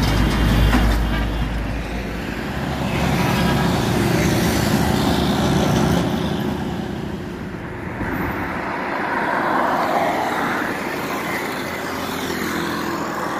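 Road traffic passing close on a highway: a heavy truck's low engine rumble in the first second or so, then the steady noise of engines and tyres of passing vehicles, changing in character about eight seconds in.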